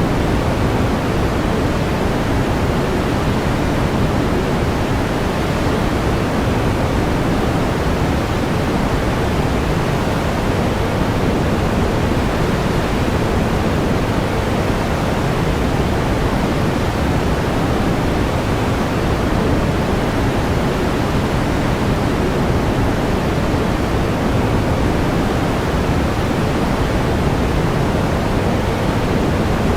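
Steady pink noise: an even, unchanging hiss, heavier in the low end and softer in the treble.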